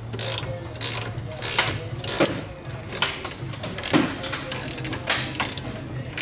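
Hand tools working on the subframe bolts: irregular sharp metallic clicks and short rattles, over a steady low hum.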